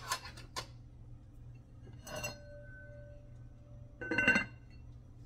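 Glass lid clinking against an amber glass cooking pot. A ringing clink comes about two seconds in, and a louder clink comes about four seconds in as the lid is set down on the rim. A few quick clicks come right at the start.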